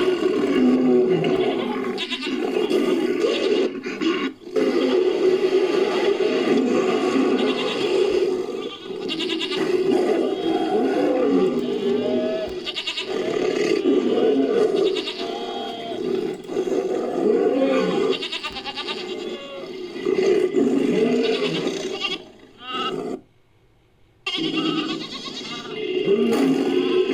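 Designed creature vocalisations: a run of bleating, roaring animal calls layered from recordings such as goat and sheep bleats and big-cat roars, following one another with short breaks and one brief silence about 23 seconds in.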